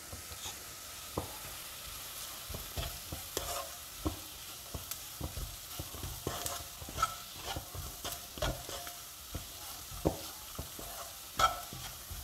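A wooden spatula stirs and scrapes sliced onions and spice powders around a nonstick kadai, in uneven scrapes and taps, over a faint sizzle of the onions frying in oil.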